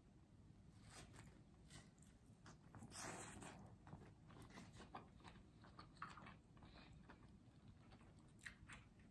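Faint close-up chewing and biting of a pizza slice, with small scattered mouth clicks and one brief louder noise about three seconds in.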